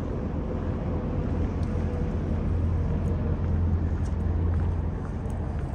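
Steady low engine rumble of traffic and idling vehicles, swelling slightly in the middle as a van drives slowly past.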